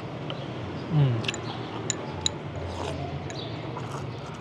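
Restaurant table noise: a few sharp clinks of utensils against the hotpot and bowls over a steady background hum, with a brief falling voice sound about a second in.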